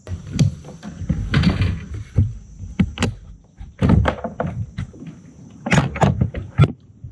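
Irregular knocks and thumps of a person shifting about in a plastic fishing kayak, the hull, seat frame and gear bumping, with the loudest knocks about four seconds in and near the end.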